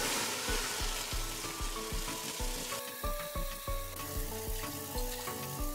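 Grated tomato pulp poured from a pot into a steel saucepan: a wet, splashing hiss, strongest in the first second. Background music with a steady beat plays throughout.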